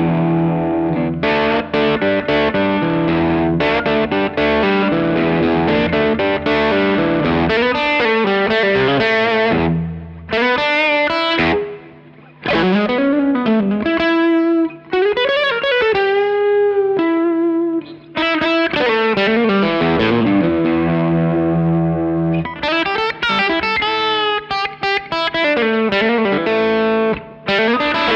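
B&G Little Sister Private Build electric guitar through an overdriven Suhr Badger 35 amp with added reverb, playing chords and lead lines. The middle has sparser single notes with string bends, and denser playing near the end.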